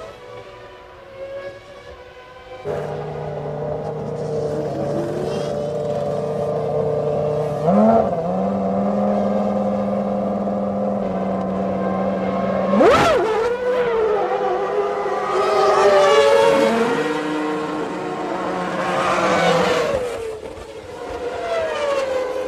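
1995 Formula One cars' high-revving 3-litre engines running on track, the notes shifting up and down with gear changes. About thirteen seconds in, one car passes close, its pitch swooping sharply.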